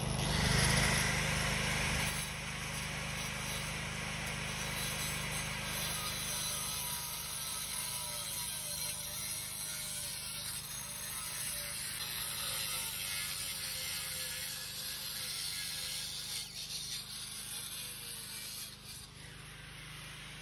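Corded electric angle grinder cutting into a concrete block, the motor running steadily with the disc grinding through the concrete. It is loudest in the first couple of seconds and eases off slightly near the end.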